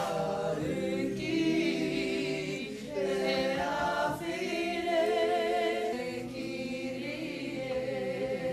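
Māori performance group singing a song together, several voices at once in harmony.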